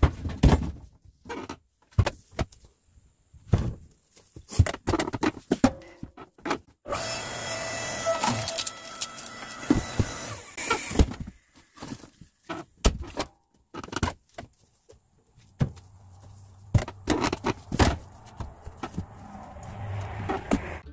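Split firewood knocking and clattering as pieces are tossed off a truck onto a pile, in repeated sharp knocks. For about four seconds in the middle, a steadier rushing sound runs under the knocks.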